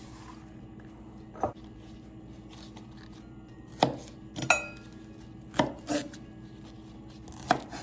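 Chef's knife chopping green onions on a wooden cutting board: a handful of separate, unhurried knife strikes, one near the middle with a brief ring.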